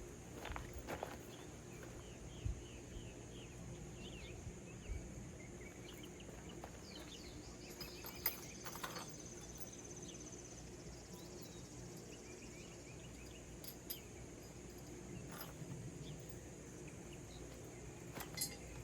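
Faint outdoor ambience: a steady, high-pitched insect trill, with short bird chirps for several seconds in the first half and a few scattered light knocks.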